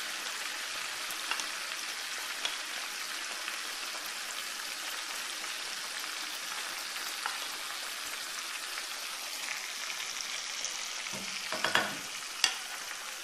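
Meat sizzling in oil and spices in a clay tagine, a steady frying hiss, with a short clatter of cookware near the end.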